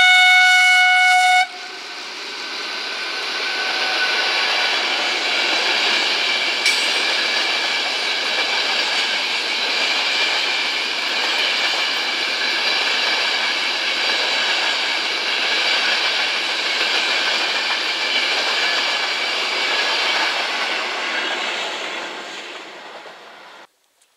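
Horn of an FS D445 diesel locomotive sounding a long blast that ends about a second in, then the locomotive and its passenger coaches passing close by. The engine and wheels on the rails build over a few seconds, hold steady while the coaches go by, then fade and cut off near the end.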